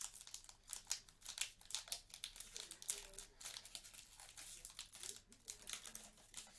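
Foil Pokémon booster pack wrapper being torn open and crinkled by hand: a quick, irregular run of crisp crackles and rustles.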